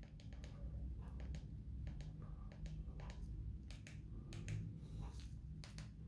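Faint, irregular small clicks and taps, a dozen or so over a few seconds, above a low steady hum, with no music playing.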